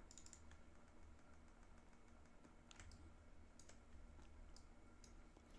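A handful of faint, scattered clicks from a computer keyboard and mouse in use, over near silence.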